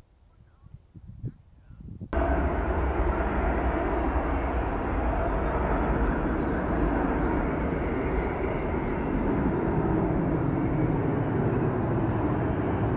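Steady rumble of a jet airliner high overhead, heard from the ground. It comes in abruptly about two seconds in after a near-quiet start.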